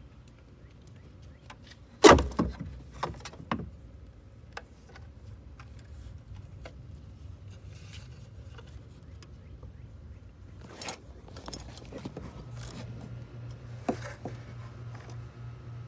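Hard plastic clicks and knocks from a 2016 Ford Focus SE's tail light housing as it is worked loose from the car body and handled. The loudest is one sharp knock about two seconds in, followed by a few lighter clicks, with more clicks later on.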